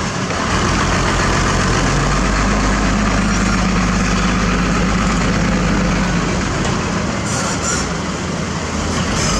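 Diesel engine of heavy construction machinery running steadily.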